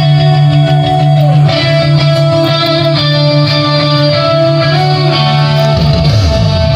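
Guitar music with a strong bass line played loud through a Joson ART 715 passive loudspeaker as a sound check. Near the end the bass slides down in pitch.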